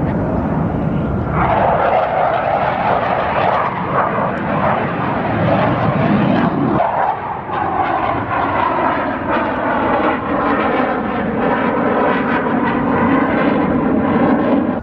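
Display aircraft flying past low, a loud steady engine rush with pitch bands that slide slowly downward in the second half as it passes.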